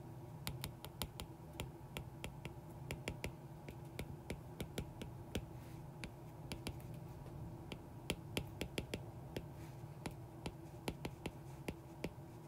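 Plastic stylus tip tapping and clicking on a tablet's glass screen while handwriting equations, in short irregular runs of several clicks a second, over a faint steady hum.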